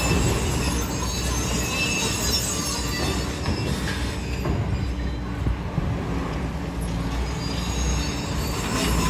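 Demolition excavators working concrete rubble: a steady low diesel rumble with scattered short high metallic squeals and scraping, with road traffic passing, a bus near the end.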